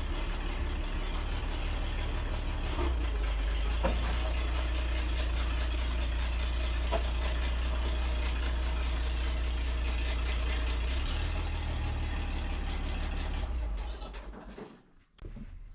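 Tractor engine running steadily at idle, a deep low drone whose tone shifts slightly about three seconds in and again near eleven seconds, then dying away about two seconds before the end.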